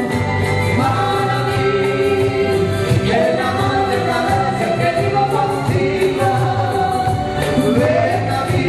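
Live band music with a woman and a man singing over a steady bass line and a regular beat.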